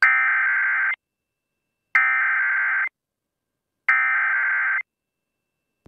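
Emergency Alert System SAME header: three bursts of rapid two-tone digital data, each about a second long and about a second apart, broadcast over a radio station. It is the coded header that opens an EAS activation, here for a tornado warning.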